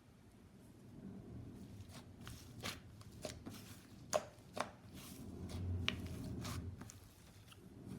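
Slime being squeezed and poked by hand, giving a series of sharp clicks and pops over soft squishing and handling noise.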